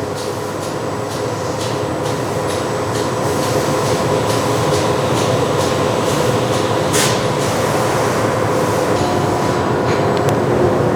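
Steady mechanical hum and hiss of running machinery, with a faint click about seven seconds in.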